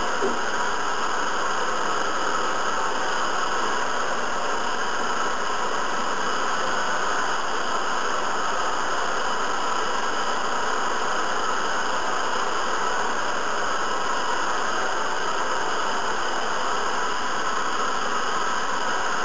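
Hair dryer running steadily, giving a constant, even rush of blown air that does not change in level.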